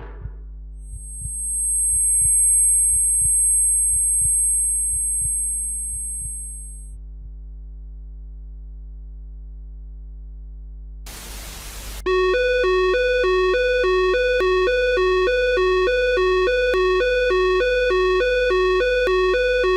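Synthesized emergency-alert sound design. A steady low drone runs under faint clicks while a piercing high ringing tone swells in and fades away. A short burst of static follows, then a loud electronic alert tone starts, alternating rapidly between two pitches.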